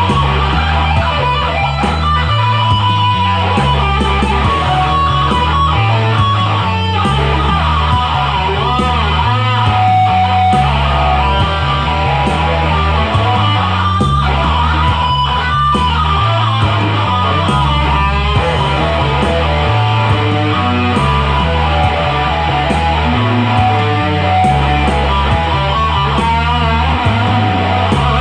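Instrumental rock music: an electric guitar plays a lead line with bent, wavering notes over a repeating bass line.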